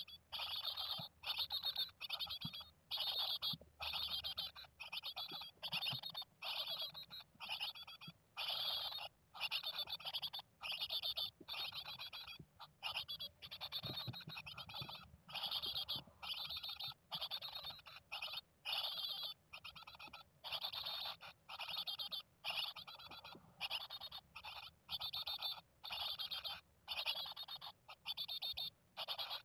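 Japanese tit nestlings calling inside the nest box: an even, unbroken run of short raspy calls, about one to two a second.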